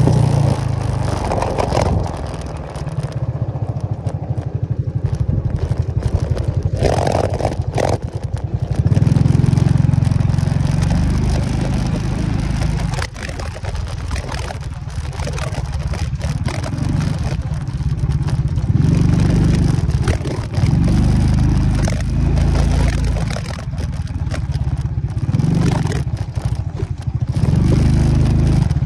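Motorcycle engine running on a rough dirt track, swelling and easing every few seconds as the throttle opens and closes, with short clattering knocks from stones and ruts under the wheels.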